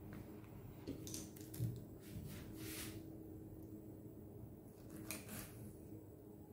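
Soft handling sounds of a fire-roasted eggplant: a few short faint scrapes and rustles as the charred skin is peeled off and a knife cuts off the stem, over a low steady hum.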